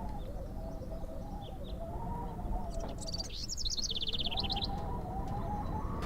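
Birds singing: a wavering, warbling call repeats throughout, and a fast high trill of rapid notes comes in about halfway, over a steady low rush of running water.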